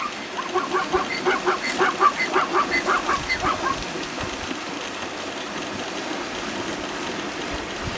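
A rapid series of short animal calls, about four a second, lasting roughly three and a half seconds, then stopping, over a steady rushing noise.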